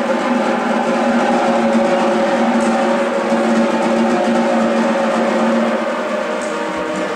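Snare drums played together by a percussion ensemble: dense, rapid strokes with no break, like a sustained roll, steady and loud.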